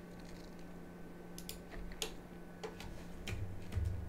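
Scattered faint clicks of a computer keyboard and mouse, a handful of separate presses, over a steady low hum, with a soft low rumble near the end.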